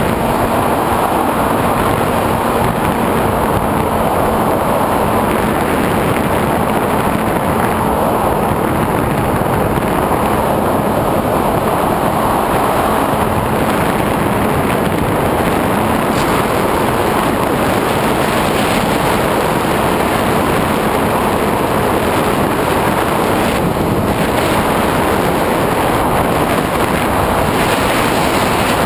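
Steady rushing wind noise from air streaming over the onboard camera's microphone on a SkyWalker 1900 FPV plane in flight.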